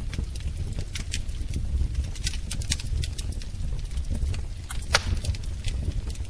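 Wood fire in a fireplace crackling: irregular sharp pops and snaps over a steady low rumble of the flames, with one louder pop about five seconds in.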